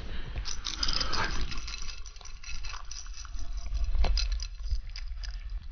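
Husky puppy nosing and pushing a small bowl across a carpet: a rapid run of small clicks, knocks and rattles from the bowl, louder about a second in and again about four seconds in.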